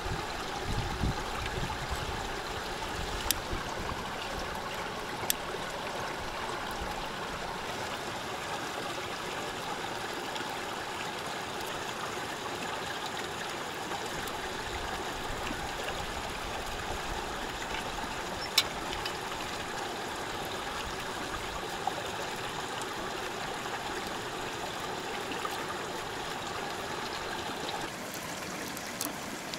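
Small stream running and trickling over rocks, a steady rushing of water, with a few sharp clicks, most of them in the first several seconds.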